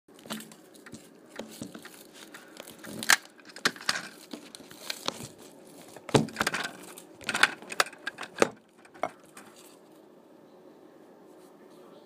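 Handling noise of a phone camera being moved and set in place: irregular rustling, scraping and clicks that stop about nine and a half seconds in, leaving a faint steady hum.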